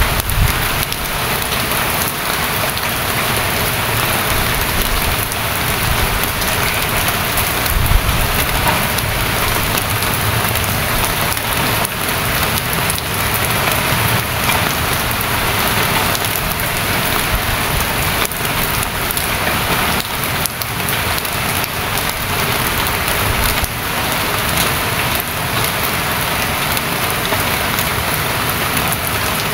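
Steady rain falling, a dense, even hiss with the patter of countless drops.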